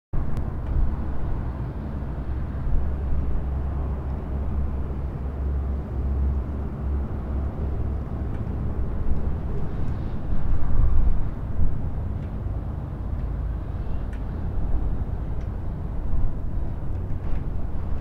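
Gentle breeze blowing continuously, a low, uneven wind noise that swells louder for a second or so about ten seconds in.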